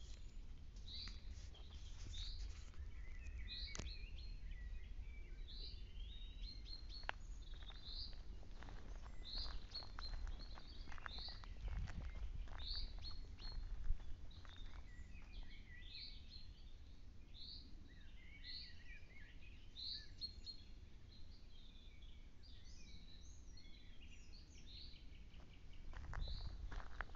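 Songbirds singing in woodland trees: one bird repeats a short high note about once a second over softer twittering from others, with a low rumble underneath.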